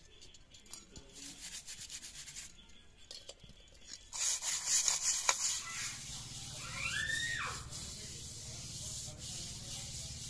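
Pots being scrubbed by hand: a clay pot rubbed with a wad of straw with scratchy strokes, then louder, rougher scrubbing about four seconds in. A little after, a short call rises and falls in pitch over a low steady hum.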